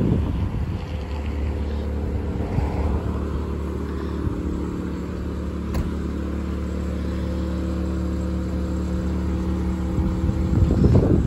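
An engine idling steadily, a low even hum that holds one pitch throughout. Wind buffets the microphone at the start and again near the end.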